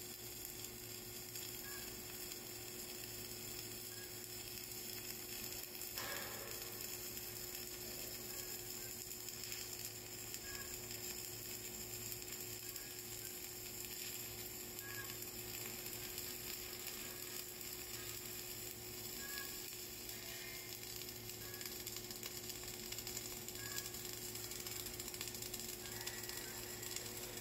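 Flux-cored arc welding on a vertical butt joint: the welding arc crackling steadily with spatter as the bead is run up the groove.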